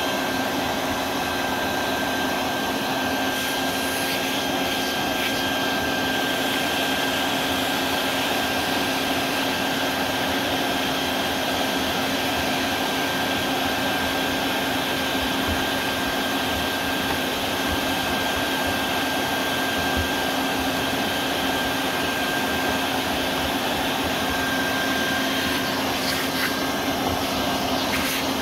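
Vacuum cleaner running steadily: a constant motor whine over a steady rush of air.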